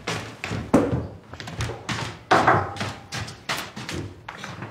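A string of irregular light knocks and thuds as paper and a pen are handled and set down on a wooden table.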